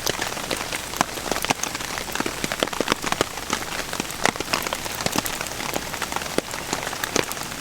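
Heavy rain drumming on a tarp, a steady hiss with many sharp, irregular drop strikes on the fabric.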